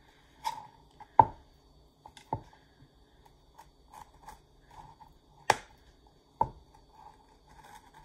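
Small kitchen knife tapping and scraping on a plastic cutting board while splitting a vanilla bean lengthwise: about five sharp clicks and knocks, the loudest about a second in, with faint small ticks between.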